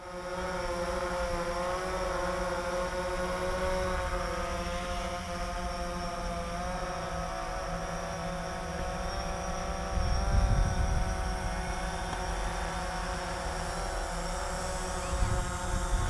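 DJI Phantom 4 quadcopter's propellers whining as it hovers and manoeuvres, the pitch of the whine wavering as the motors correct against the wind. Wind buffets the microphone in low rumbling gusts, loudest about ten seconds in and again near the end.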